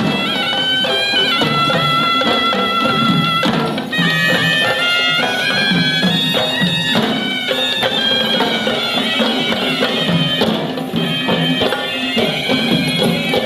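Kandyan perahera procession music: a shrill reed pipe of the horanewa type playing a winding melody over steady drum strokes.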